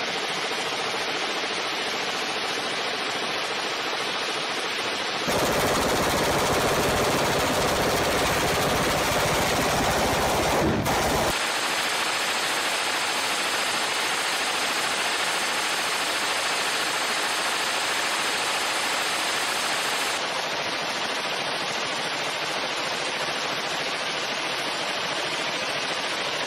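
Belt-fed light machine gun on a bipod firing long, unbroken full-auto strings, the shots running together into one continuous rattle, louder for a few seconds about a third of the way in. The sustained fire is heating the barrel to a red glow.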